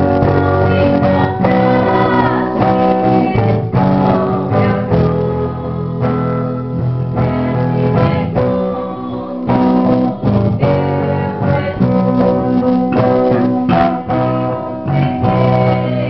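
Gospel music led by a strummed guitar, with some singing.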